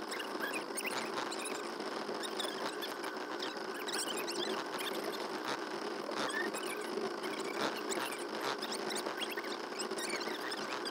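Small boat motor running with a steady, fly-like buzz, with scattered faint clicks and squeaks over it.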